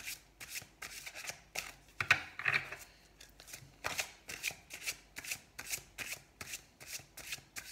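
A large deck of oracle cards being hand-shuffled, the cards slapping and sliding against each other in an even rhythm of about three strokes a second, with a louder flurry about two seconds in.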